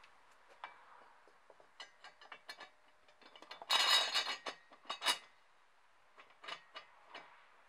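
Metal clicks and clinks of a wheelbarrow wheel's steel hub and axle parts being fitted together by hand on a welded steel scooter frame. A louder rattle of metal comes about four seconds in, with a sharp clink about a second later.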